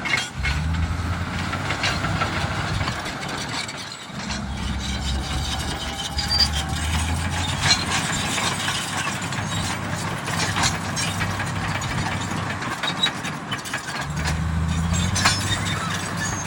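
Komatsu D85EX crawler dozer working: its diesel engine running with a low steady drone, under a constant clatter of sharp clanks and squeaks from the steel tracks and blade.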